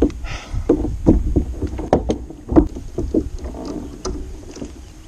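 Irregular knocks and clunks of a landing net and fishing gear against a plastic kayak as a freshly caught bass is netted, lifted aboard and taken out of the net.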